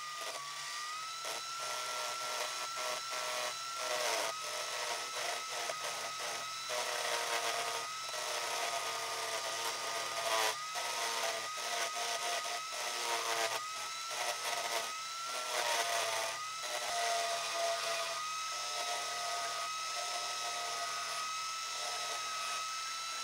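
Power drill running with a steady high whine while something scrapes against the spinning wooden pencil blank in frequent short rasps; the whine dips slightly under the load now and then.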